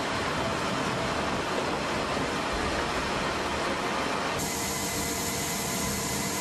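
Steady mechanical rushing noise inside a C-17 Globemaster's cargo hold, with no separate knocks or rhythm. Its tone changes suddenly a little over four seconds in.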